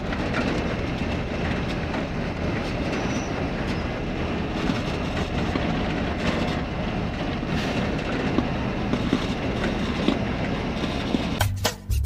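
Steady rumble and road noise of a moving vehicle travelling along a highway. About a second before the end it cuts abruptly to music.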